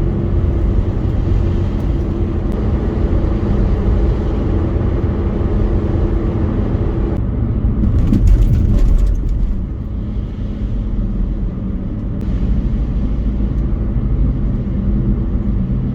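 Car road noise heard from inside the cabin while driving: a steady low rumble with a faint hum, growing louder for a moment about eight seconds in.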